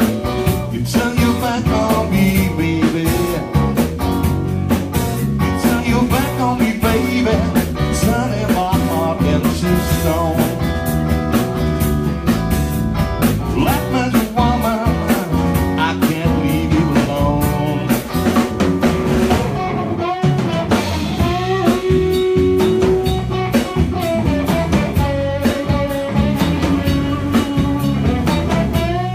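Live band playing a song: electric guitar and drum kit, with a singer's vocals.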